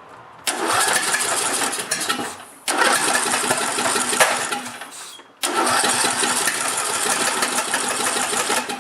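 John Deere LA125's 21 hp Briggs & Stratton engine being cranked on the starter three times, sputtering but never catching. The timing has been thrown off by a broken flywheel and a displaced flywheel key.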